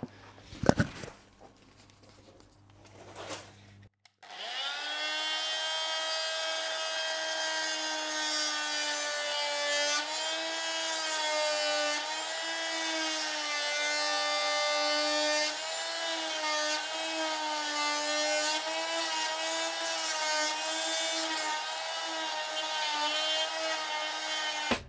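A power saw spins up about four seconds in and cuts wood steadily, its pitch wavering slightly under load. It is trimming the bottom edge off wooden skirting board and panelling, set on a 3mm spacer. It cuts off suddenly near the end, and a single knock comes before the cut starts.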